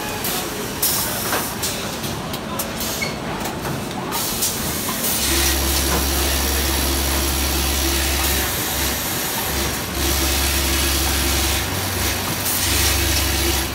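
Automated assembly-line machinery running: a steady hiss with a few short louder surges, like compressed air venting. A low hum comes in about five seconds in and drops out briefly several times.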